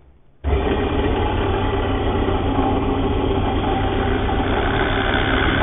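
A bench drill press's electric motor is switched on about half a second in, then runs steadily with a constant hum at a fairly quick spindle speed.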